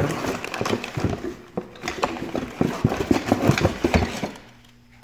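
Packaging and parts being handled out of a smoke detector's box: a run of irregular rustles, clicks and light knocks that dies down near the end.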